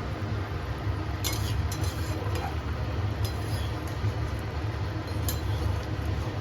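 A cooking utensil clinking against a pot several times, irregularly, as a thin curry is stirred, over a steady low hum.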